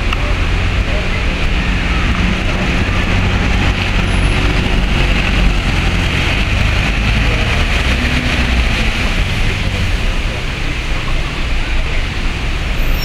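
City buses running across a wet square: a steady low engine hum under the hiss of tyres on wet pavement as one bus passes and pulls away. Near the end an Irisbus Citelis 12 approaches.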